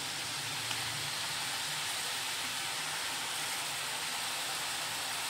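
Freshly pressed besan (chickpea-flour) sev strands deep-frying in hot oil in a pan: a steady, even sizzle of bubbling oil.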